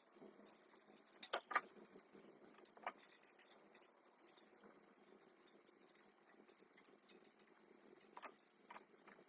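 Mostly quiet, with a few light metallic clicks and clinks of tools and parts being handled: a quick cluster about a second and a half in and two more near the end.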